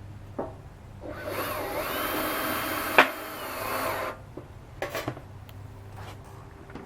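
A power drill runs for about three seconds, its motor whine wavering in pitch as it bores through the sheet-metal patch and plastic chute, with a sharp snap near the end of the run. A few short knocks come before and after it.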